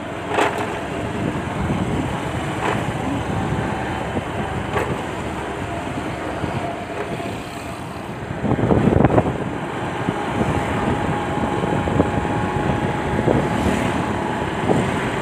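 Motorcycle riding along a road, heard through a handheld phone's microphone: engine running under a steady rush of wind and road noise, with a few short clicks and a louder stretch about eight to nine seconds in.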